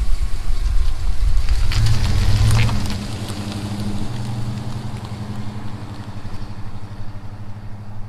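Truck engine running steadily, louder for about the first three seconds and then settling to a lower, even level.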